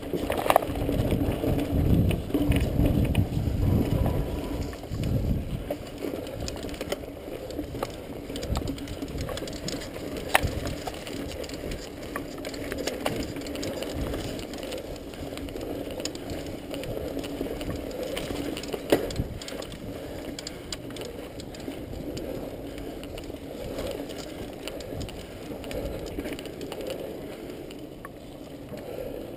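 Mountain bike riding a dirt singletrack trail: tyre noise over the ground with the chain and frame rattling and many small clicks, and a heavier rumble over the first few seconds.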